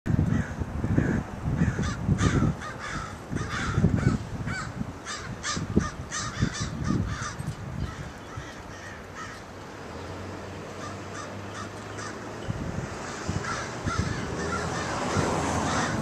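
A flock of crows cawing, with many harsh calls overlapping in quick succession, easing off about halfway through and picking up again near the end. Low rumbling on the microphone in the first few seconds.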